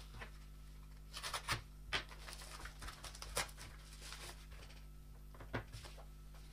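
Faint crinkling and rustling of a small mail packet being handled and opened, with a few soft taps and clicks spread through it.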